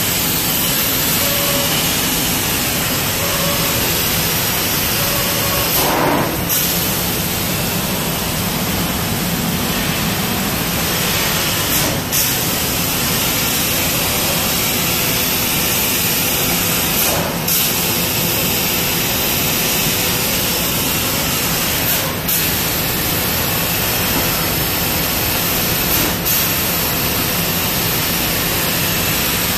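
Trumpf laser cutting machine cutting 2 mm aluminium sheet: a loud, steady rushing hiss, with a short change in the sound every five seconds or so.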